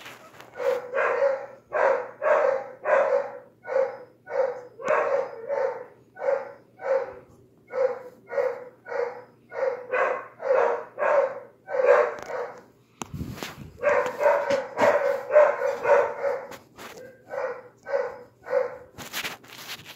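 Dogs barking in a chorus: a long run of short, evenly spaced barks, about two a second, with a brief break about 13 seconds in before the barking resumes.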